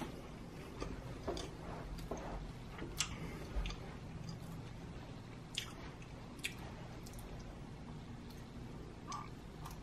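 Close-miked chewing of a flaky pumpkin and cream cheese Danish pastry: soft, wet mouth sounds with scattered faint crackles, busiest in the first three seconds.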